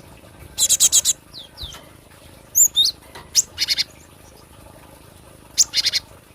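Cinereous tit (gelatik batu) calling: three quick runs of four or five rapid notes, about a second in, in the middle and near the end. Between the runs come a few single whistled and sliding notes.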